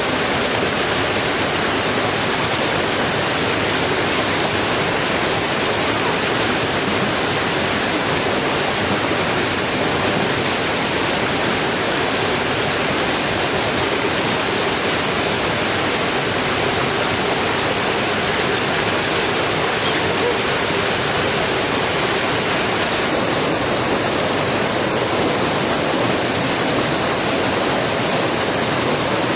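Heavy rain falling as a steady, unbroken hiss.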